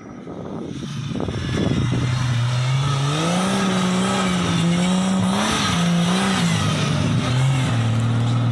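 Off-road 4x4 engine under load, growing louder over the first two seconds, then held at high revs with its pitch rising and falling as the throttle is worked.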